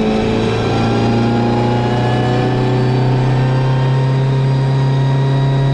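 Classic Mini Cooper S rally car's A-series four-cylinder engine heard from inside the cabin, pulling under steady acceleration, its revs climbing slowly.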